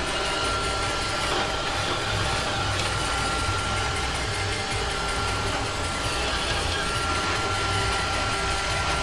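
iRobot Roomba 565 robot vacuum running: a steady motor and brush drone with a steady high whine over it.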